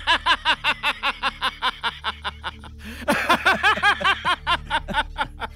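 A man laughs a long, gloating laugh in rapid rhythmic 'ha-ha' pulses, about five a second, getting louder from about three seconds in. A low steady drone sits underneath.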